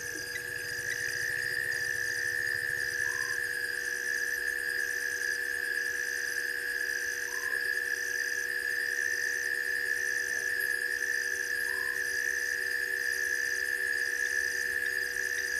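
Night chorus of insects and frogs at a waterhole: a steady shrill insect drone, a higher trill pulsing on and off about once a second, and a short call repeating about every four seconds.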